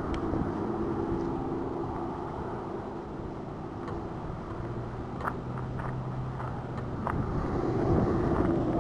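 Road traffic: cars and pickup trucks driving past, their engines giving a steady hum that drops lower about halfway through, with a few light clicks around five to seven seconds in.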